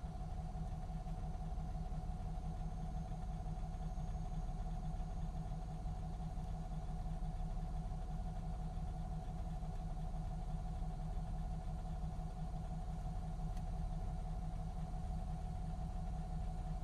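Cummins ISX12 diesel engine of an MCI D4500CT coach running at a steady speed: a constant low rumble with a steady whine above it, holding one pitch throughout.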